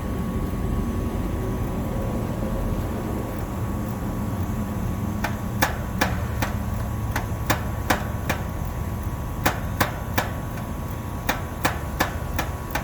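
Air conditioner condenser unit running with a steady hum, its compressor pumping refrigerant down. From about five seconds in comes a series of sharp, irregular clicks from a ratcheting service wrench turning the liquid line service valve closed.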